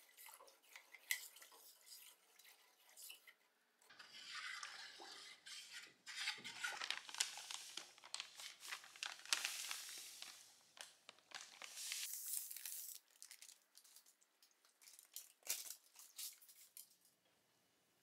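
Hot-bluing salts (potassium nitrate) poured from a plastic bag into water in a stainless steel pot and stirred: a rushing hiss of pouring granules through the middle, with scattered clinks and taps against the pot before and after.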